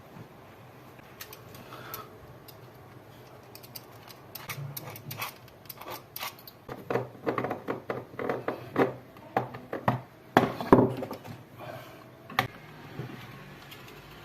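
Irregular clicks, taps and knocks of small hard objects being handled, sparse at first, then thicker and louder from about six seconds in, with one sharp knock about ten and a half seconds in.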